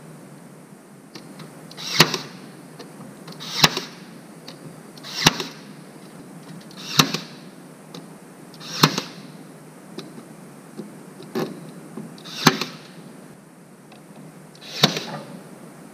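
A series of sharp strikes, about one every one and a half to two seconds, each preceded by a brief swelling whoosh.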